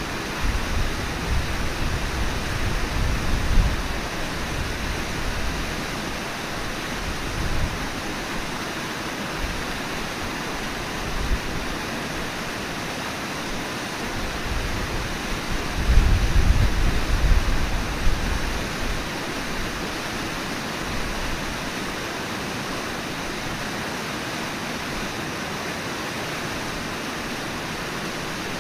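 Steady rush of the Brooks River flowing. Wind buffets the microphone in gusts near the start and again about halfway through.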